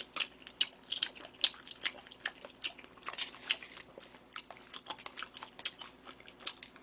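Close-miked eating sounds: metal chopsticks clicking and scraping in a cup of tteokbokki as a soft-boiled egg is mixed into the sauce, together with chewing. Sharp, irregular clicks, several a second.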